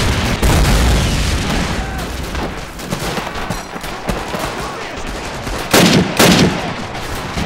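Battle gunfire: a dense run of rapid shots throughout, with two much louder shots close together about six seconds in.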